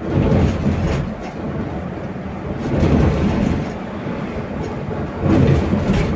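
Low road rumble of an electric sleeper bus rolling along, tyres and body noise heard from inside the cabin, swelling louder at the start, about halfway through and near the end.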